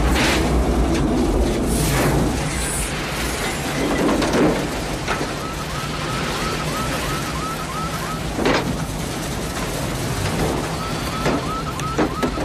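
Storm sound of heavy wind and driving rain with a low rumble, broken by several sharp cracks. A rapid electronic chirping beep, about four a second, starts about five seconds in and comes back near the end.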